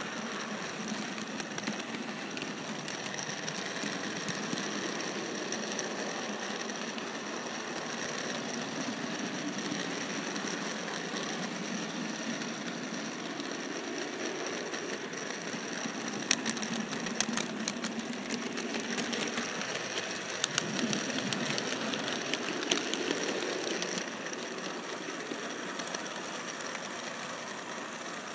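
Model train running on the layout's track: a steady electric-motor whine over wheel rumble, with a run of sharp clicks from about halfway through as the wheels cross rail joints and switches.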